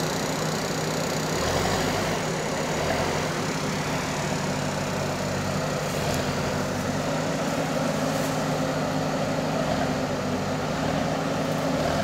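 JCB 3DX backhoe loader's diesel engine running steadily as the machine moves and works with its front loader bucket.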